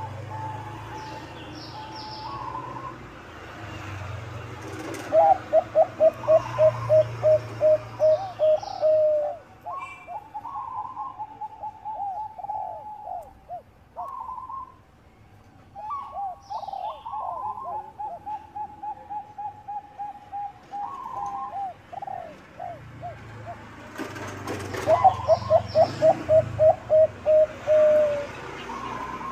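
Bangkok-strain zebra dove (perkutut) song: soft coo phrases repeated throughout. Twice the bird breaks into a loud run of quick staccato coos, about three or four notes a second, a few seconds in and again near the end. Faint chirps of small birds are heard behind it.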